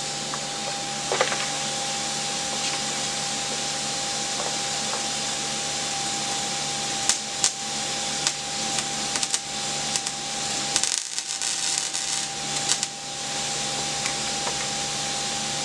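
Electric welder tack-welding a sheet-steel front apron: short bursts of crackling arc between about seven and thirteen seconds in, over a steady hiss with a faint whine.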